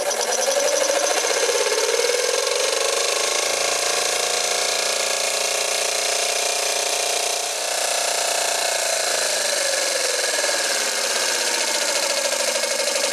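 Peake No 6 'Hypnocycle' model steam engine running fast under steam, a rapid, even mechanical beat whose pitch rises a little, holds, then eases back down as its speed wavers.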